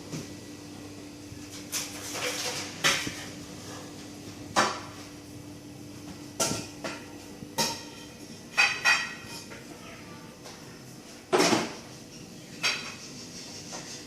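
Hard objects, probably metal parts and tools, being handled and set down: about a dozen separate sharp clinks and knocks, a few with a brief metallic ring.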